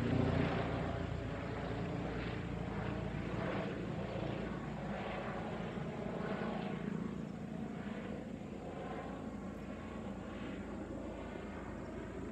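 Airbus H145 twin-turbine helicopter flying over, a steady rotor and turbine noise that slowly fades as it moves away.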